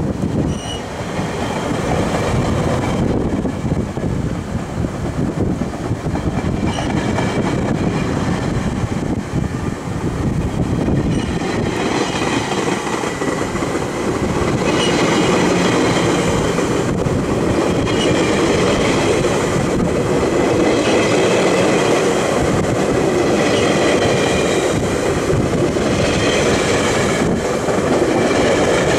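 GO Transit bilevel passenger coaches rolling past close by as the train pulls out of the station and picks up speed: a steady rumble of wheels on the rails, getting louder about halfway through, with faint high squealing tones from the wheels.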